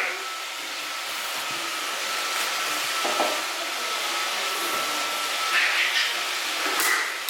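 Robot vacuum cleaner running: a steady hiss of the suction motor with a thin high whine that stops about five and a half seconds in, and a few brief louder sounds near the middle and end.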